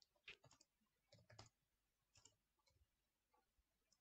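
Faint, irregular clicks of computer keyboard keys being typed, in small clusters.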